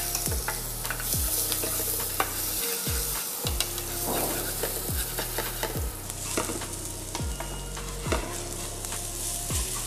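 Minced garlic sizzling in hot cooking oil in a frying pan as it is stirred, with the utensil clicking against the pan now and then. This is the garlic being fried until fragrant, the first stage of a stir-fry.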